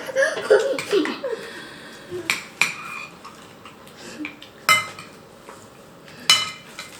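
Sharp clinks of hard household objects, like crockery or cutlery knocking together: four separate strikes, each with a brief ringing, after a child's voice in the first second.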